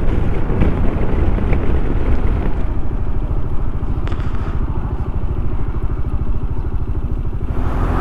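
Motorcycle engine running with a fast, even pulse; near the end the sound changes to a steadier, slightly louder tone.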